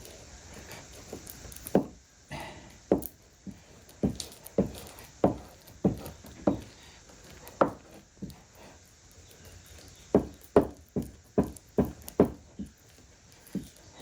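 Irregular sharp wooden knocks and taps, about twenty of them, some in quick clusters, as tools work the freshly glued veneer down on a mahogany panel.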